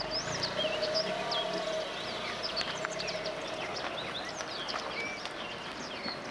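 Birds chirping and twittering, many short rising and falling calls, over a steady low hum.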